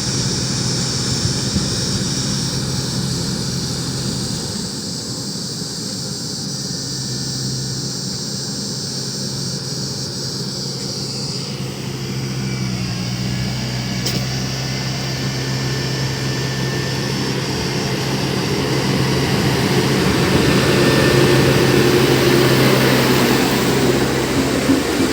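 Diesel engine of a heavy road-construction machine running steadily, growing louder about three quarters of the way through.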